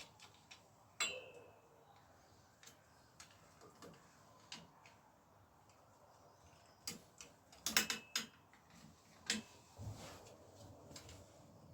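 Scattered light metallic clicks and taps from tools and bicycle parts being handled, one about a second in ringing briefly, with a quick cluster of several knocks about two thirds of the way through.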